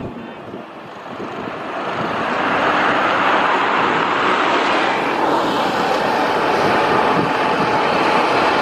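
Two Pratt & Whitney PW150A turboprop engines and propellers of a De Havilland Dash 8 Q400 (DH8D) on the runway. The sound grows louder over the first two or three seconds, then holds steady as the engines are brought up for takeoff.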